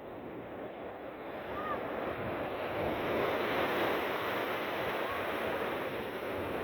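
Sea waves surging and washing in, the rush of water building to its loudest a few seconds in and easing only slightly after.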